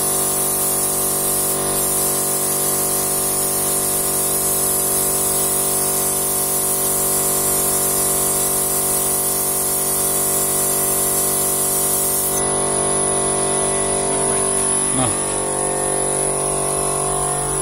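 Pneumatic gravity-feed paint spray gun hissing as it sprays, over the steady hum of the air compressor that feeds it. The spray hiss drops away about twelve seconds in, and the compressor hum carries on.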